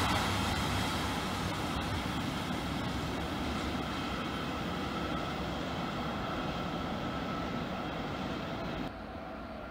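Intermodal freight train of semi-trailer wagons rolling away into the distance, a steady rumble and hiss slowly fading. About a second before the end it drops suddenly to a quieter steady background.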